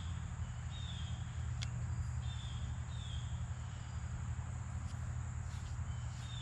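Outdoor ambience: a bird giving short falling chirps about once a second over a constant high insect drone and a steady low rumble, with one sharp click.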